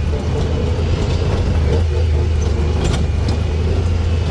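ATV engine running steadily, a loud, even low hum with a few light rattles.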